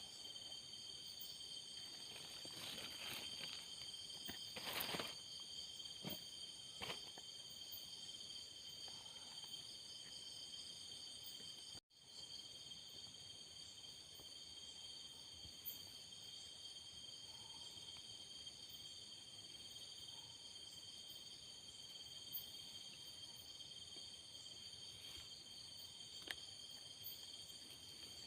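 Night chorus of insects trilling steadily at several high pitches at once, with a few faint rustles or knocks in the first seven seconds. The sound cuts out for an instant about twelve seconds in.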